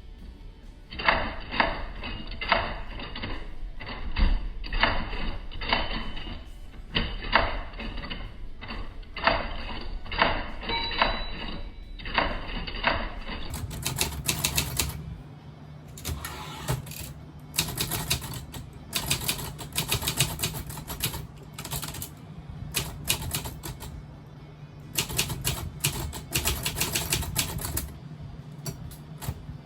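Keys of a Predom Łucznik manual portable typewriter being struck in quick bursts of clicks, with short pauses between bursts. About halfway through, a steady low hum comes in under the typing.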